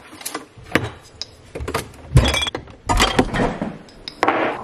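A string of knocks and clinks as glass jars are handled and set down on a hard kitchen benchtop, with one louder knock about two seconds in.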